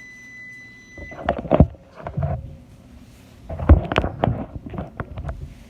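Knocks and clatter of kitchenware being handled, in two bursts. A steady high electronic whine is heard during the first second and stops.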